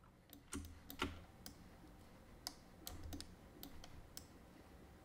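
Faint, irregular clicking of a computer mouse and keyboard during texture painting, about ten sharp clicks spread unevenly with a few soft thuds of the desk.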